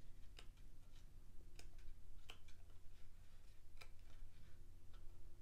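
Pages of a thick paperback booklet being turned one after another, making light, irregular paper ticks and flicks over a low steady hum.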